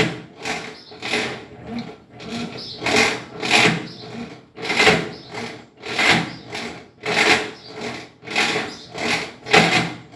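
Colormaq washing machine running with a loud mechanical noise in repeated bursts, roughly one a second, over a steady hum. This is the abnormal noise the machine is making.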